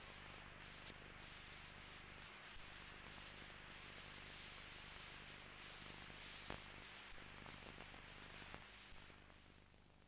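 Faint steady hiss with a low hum underneath and a few clicks: the background noise of an old analog recording, with no music playing. It fades down near the end.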